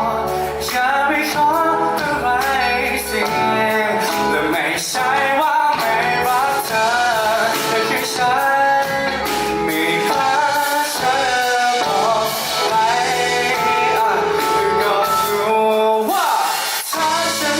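Live pop band music with a sung melody over guitar, bass and drums; the bass drops out briefly near the end.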